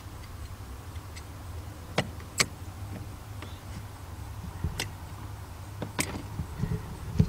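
A handful of short, sharp metallic clicks as locking pliers grip and work a hose clamp onto a hose, two of them close together about two seconds in, over a low steady rumble.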